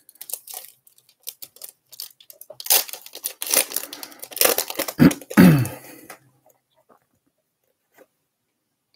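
Foil booster-pack wrapper crinkling and being torn open by hand. Scattered crackles come first, then a denser stretch of tearing and crinkling in the middle, which dies away about six seconds in.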